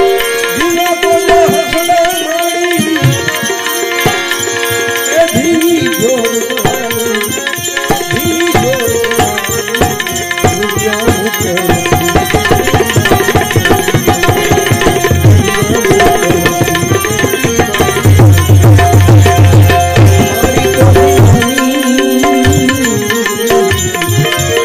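Man singing over tabla accompaniment, with sustained instrumental notes underneath. Between about 18 and 21 seconds in there is a run of strong bass drum strokes.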